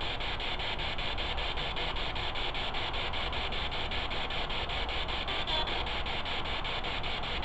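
Spirit box sweeping through radio stations: a steady hiss of static, chopped about four times a second as it scans.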